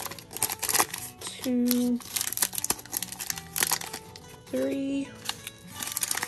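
Crinkling and rustling of small foil toy packets being handled and opened by hand, in quick irregular crackles. Soft background music runs underneath, and two short loud held tones sound about a second and a half in and again near four and a half seconds.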